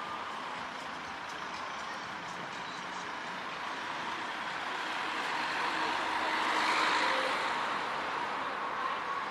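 Road traffic passing along a street, a steady rush of engines and tyres that swells as a vehicle goes by close at about seven seconds in, then eases.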